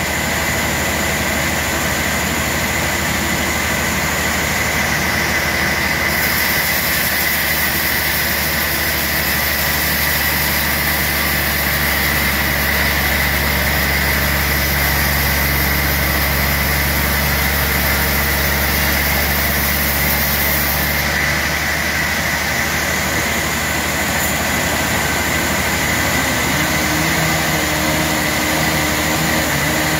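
Band sawmill running and cutting lengthwise through a large log: a steady, even machine hum with a steady high tone over it.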